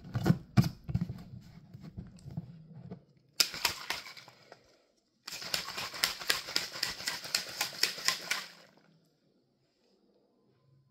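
Clicks from the lid of a plastic shaker cup being snapped shut, then the cup shaken hard: a short burst, then about three seconds of fast, even rattling, mixing Gamer Supps drink powder.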